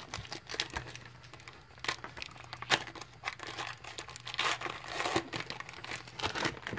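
Plastic wrapper of a Donruss Optic basketball card pack crinkling and tearing as the pack is opened by hand, in irregular bursts of crackling.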